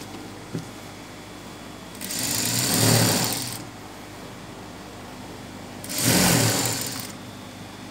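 Industrial single-needle sewing machine stitching a seam in two runs, each a second or so long, the second beginning about six seconds in, with a low steady hum between the runs.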